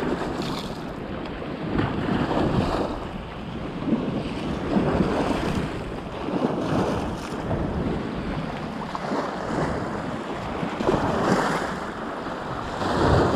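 Small sea waves breaking and washing over shoreline rocks and sand, the surge swelling about every two seconds, with wind buffeting the microphone.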